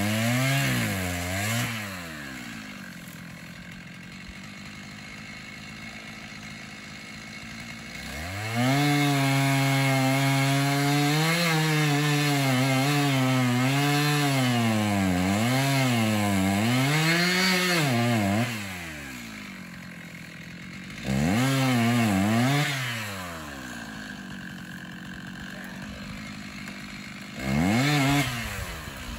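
Stihl MS 290 two-stroke chainsaw cutting into a tree. It opens with a burst of throttle, then makes one long cut of about ten seconds, its pitch dipping and recovering as the chain bites. Two shorter bursts follow, with the saw idling in between.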